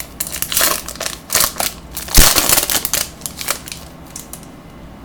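Foil wrapper of a Bowman baseball card pack crinkling and tearing as it is ripped open, in a run of crackles that dies away after about four seconds.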